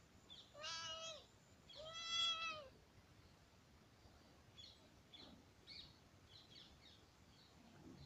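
Domestic cat meowing twice, two short meows that each rise and fall in pitch, the second louder.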